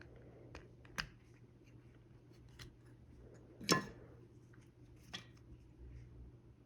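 Seatbelt retractor parts being handled: a few sharp clicks and knocks, the loudest a little past the middle, with smaller ticks between.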